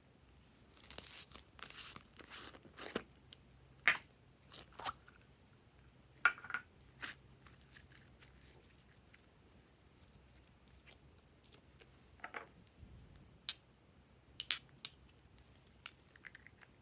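Hands working clear slime, which gives off irregular sticky clicks, crackles and sharp pops. There is a busy run of crackling in the first few seconds, then single snaps spaced apart.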